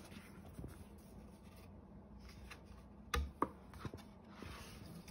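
A hand rubbing and tapping lightly on the glossy cardboard pages of a board book, with a soft knock a little after three seconds in.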